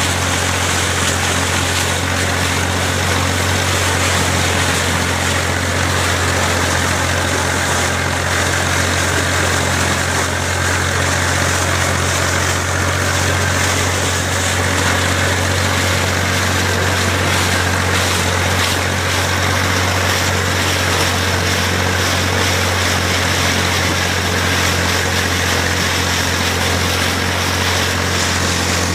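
IMT 533 tractor's three-cylinder diesel engine running at a steady speed, a constant low hum with a hiss of working machinery over it that does not change.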